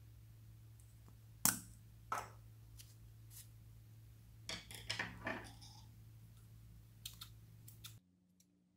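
Small plastic tube handled with a few sharp plastic clicks, the loudest about a second and a half in, and a cluster of clicks and rustling around five seconds. Light scissor snips cutting into the tube near the end.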